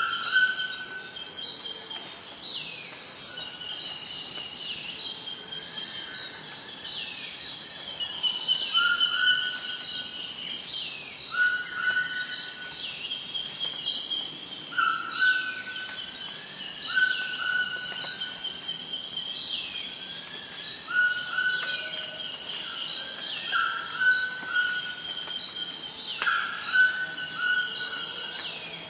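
Toucans calling with short repeated notes every second or two over a steady, high-pitched insect drone, with quick rising chirps about once a second above it: rainforest ambience.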